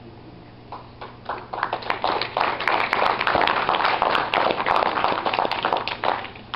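Church congregation applauding: a few scattered claps about a second in, building to steady dense applause, then thinning out near the end.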